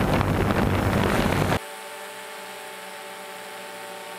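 Quadcopter drone motors and propellers. For the first second and a half it is loud and rough with a low hum, as picked up by the drone's own onboard microphone. After a sudden cut it becomes a quieter, steady hovering whine of several held pitches, heard from the ground.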